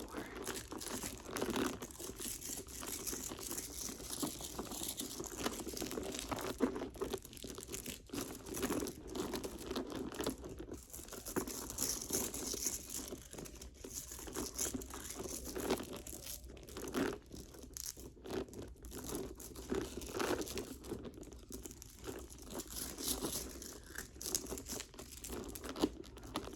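Leather Gucci handbag being tapped and handled, with an irregular run of soft taps, rustling and crinkling from the bag and the things inside it.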